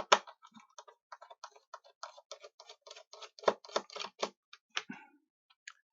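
Small plastic clicks and taps, several a second, with a few louder knocks about halfway through, as a tool works at the plastic case of an ADSL2 modem to pry up its feet and get at the screws beneath.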